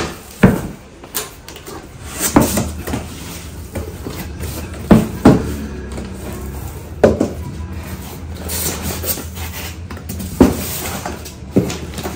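Cardboard box being opened and a gas hob's packed parts handled: flaps and wrapped pieces knock and clatter about ten times at irregular intervals, with rustling of cardboard and plastic wrap between.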